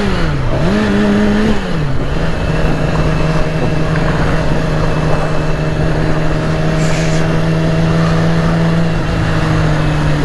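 2008 Yamaha R6's inline-four engine running under way, its pitch rising and falling a couple of times in the first two seconds as the throttle changes, then holding a steady cruising note, with wind rushing over the helmet microphone.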